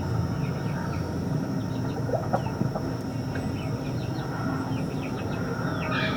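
Scattered short bird chirps over a steady low background hum, with a thin steady high-pitched tone.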